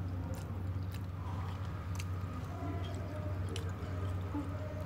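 A person chewing food with a few small wet clicks from the mouth, over a steady low hum.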